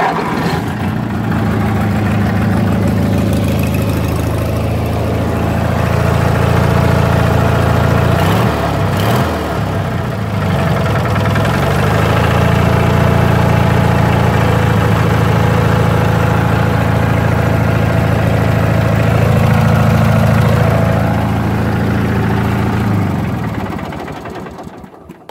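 Snapper riding mower's engine catching and then running steadily. Its speed dips and recovers briefly about a third of the way in, and near the end it is shut off and winds down.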